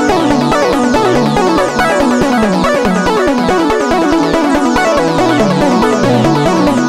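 Make Noise Eurorack modular synthesizer patch playing a rapid sequence of short stepped notes over a bass line that steps between pitches, with quick falling sweeps repeating in the highs.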